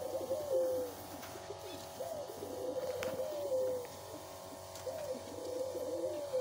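Domestic pigeons cooing: a drawn-out coo repeated about every three seconds, each one rising, holding and then dropping in pitch.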